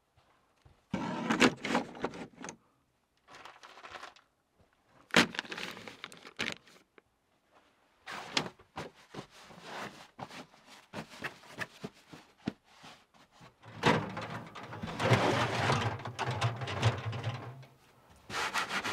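Wooden knocks, clatters and scrapes of boards being handled and fitted into a wooden shelf unit, in short bursts with pauses between them. About fourteen seconds in comes a longer stretch of rubbing and scraping, wood on wood.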